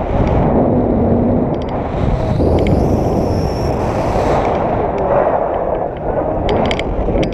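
Wind buffeting an action camera's microphone in paraglider flight: a loud, steady rumble with no break.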